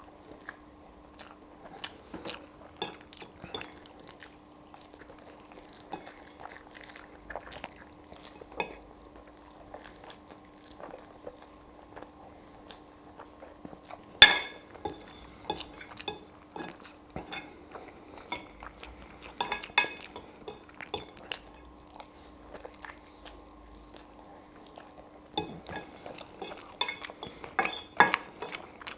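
Close-miked eating of spaghetti carbonara: chewing, with a fork clinking and scraping on a plate. A single loud clink comes about 14 seconds in, and a run of clatter near the end. A steady low hum lies underneath.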